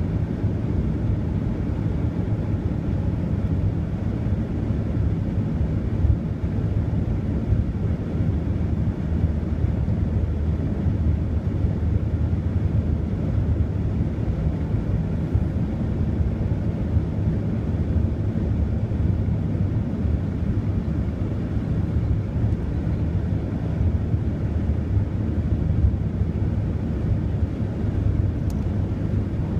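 Steady cabin noise of a car cruising at motorway speed: a constant low rumble of tyres and engine.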